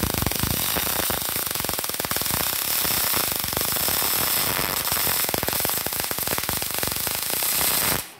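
MIG welding arc on thin plate, shielded with argon gas, from a Multipro MIG/MAG 250 welder set at about 75 amps: a steady, dense crackle that stops abruptly near the end.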